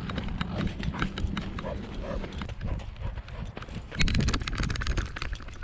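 A Brittany spaniel running: quick footfalls and the knocking of the back-mounted GoPro harness, an uneven stream of thumps and clicks that gets louder about four seconds in.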